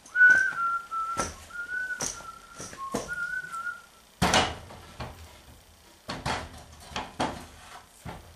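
A person whistling a short tune of several notes for about three and a half seconds. About four seconds in comes a loud thud, followed a little later by knocks and clatter as wooden poles are handled.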